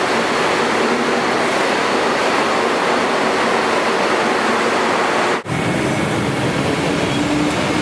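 Kuala Lumpur monorail train running past the station platform on its rubber tyres, a steady rushing noise. It cuts off suddenly about five seconds in, giving way to the noise of busy street traffic, with a faint rising engine tone near the end.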